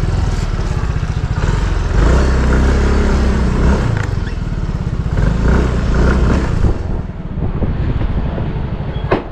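Yamaha motor scooter's engine running as it pulls away and rides a short distance, louder from about two seconds in and easing off near the seventh second as it slows. A sharp click just before the end.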